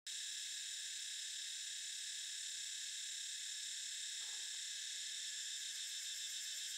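Steady, high-pitched chorus of forest insects, continuous and unchanging.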